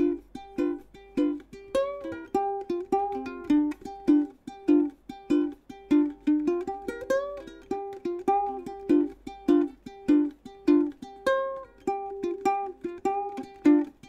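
Waterman by Kala plastic ukulele strummed in a steady rhythm, bright chords with a melody line on top, recorded dry with no effects.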